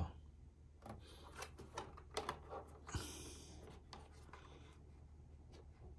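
Faint handling noise from hands on a portable speaker: a scatter of light clicks and taps, then a short scraping rustle about three seconds in.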